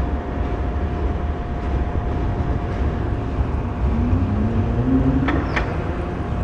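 Steady low rumble of city street traffic. About four seconds in, a motor whine rises in pitch, and just after five seconds there are two short, sharp high squeaks.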